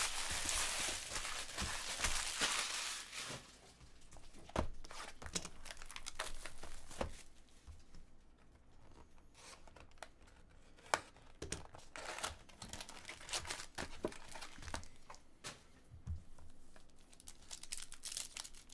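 Foil trading-card pack wrappers crinkling loudly as a handful of packs is gathered for about three seconds, then scattered crackles, rips and sharp clicks as packs are slit and torn open.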